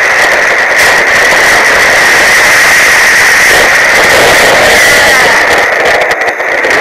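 Boat engine running hard with a loud, steady noise as the boat pushes through and breaks up lake ice; the level wavers and dips briefly near the end.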